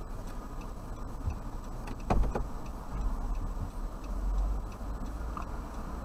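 A car pulling away from the curb, heard from inside the cabin: a low engine and road rumble that swells as it moves off, with a turn signal ticking steadily. A single thump about two seconds in.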